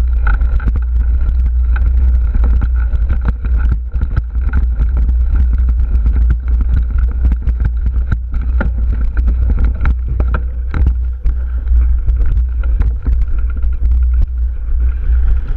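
Wind buffeting the microphone of a camera on a mountain bike riding a dirt singletrack, a heavy steady rumble, with the bike's frequent rattles and knocks over the bumpy trail.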